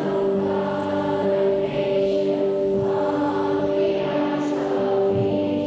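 A group of primary school children singing a blessing together, slow and steady with long held notes.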